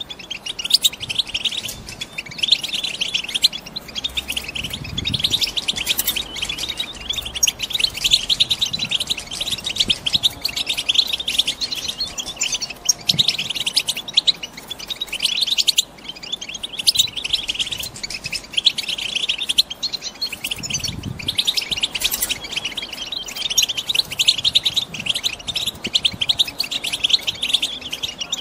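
Female European goldfinches twittering: dense runs of quick, high chirps broken by brief pauses, the excited chatter of females ready to breed.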